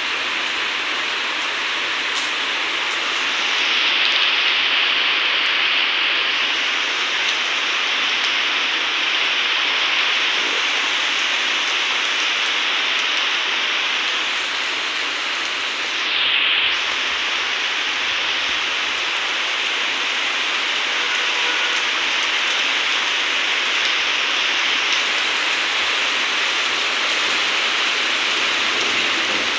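Heavy rain falling steadily on wet paving tiles, a dense even hiss of drops. It swells a little about four seconds in and again briefly at about sixteen seconds.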